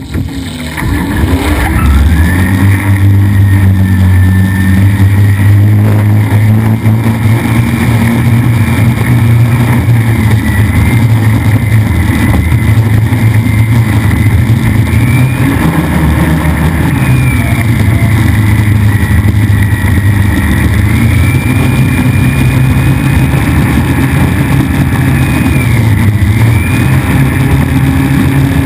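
A 4.2-litre race boat's engine running hard at speed, a steady loud drone with small rises and falls in pitch, over the rush of wind and spray; it fades in over the first second or two.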